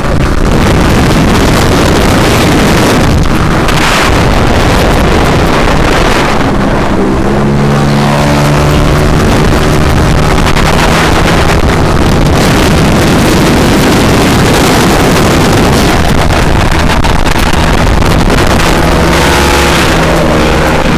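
Motorcycle engine under way with heavy wind rush on the helmet or body microphone. The engine pitch rises several times as the rider accelerates through the revs.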